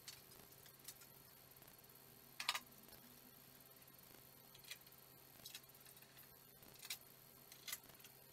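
Scattered light clicks and taps of hand tools and metal fittings being handled on a go-kart frame, about seven in all, the loudest a quick double tap about two and a half seconds in.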